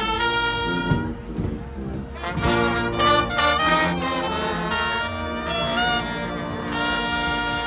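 Guggenmusik carnival band playing live brass music: trumpets, trombones and sousaphones over a bass drum and cymbals. Near the end the horns hold long notes.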